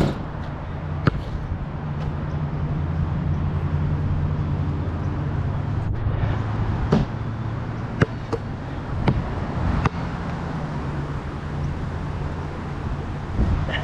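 Steady low rumble of wind on a GoPro's microphone, with a handful of short, sharp knocks of a basketball striking the hoop and bouncing on the asphalt court, several of them close together in the second half.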